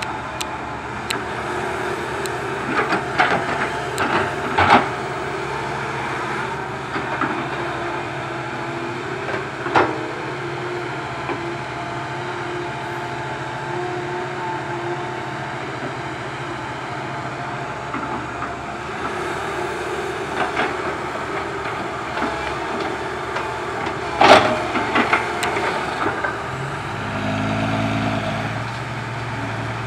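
Komatsu PC130 hydraulic excavator's diesel engine running steadily as it digs dirt and rock, with several sharp clanks and knocks from the bucket and rocks, the loudest about 24 seconds in. Near the end the engine note deepens and strengthens as it lifts a full bucket.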